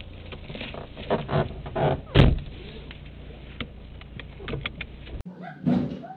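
Idling patrol car heard from inside the cabin, with clunks and rustles and one heavy thump of a car door shutting about two seconds in. Near the end the car hum cuts off abruptly, and a short kitten mew follows.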